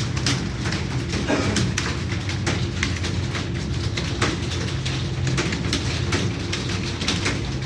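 Computer keyboard typing: fast, irregular key clicks, over a steady low hum.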